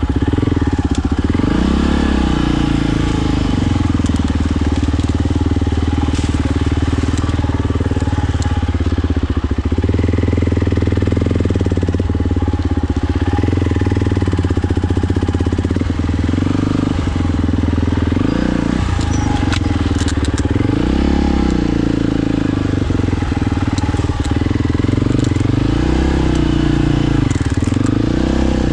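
Quad ATV engine running under load, its revs rising and falling again and again, with a few short knocks.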